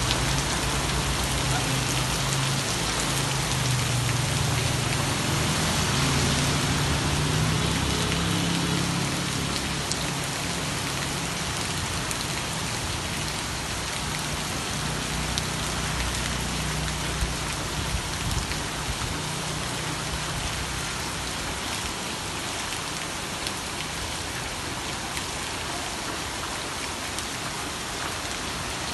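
Steady heavy rain falling on a wet street and pavement, an even hiss, with a low rumble under it for roughly the first twenty seconds that then fades.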